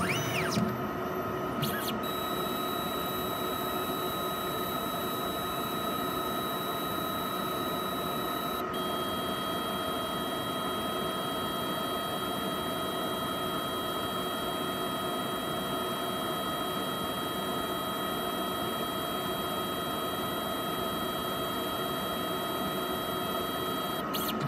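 PATHFAST immunoassay analyzer running during its magnetic separation step: a steady mechanical hum with a high electronic whine that starts about two seconds in, shifts pitch slightly partway through, and stops near the end.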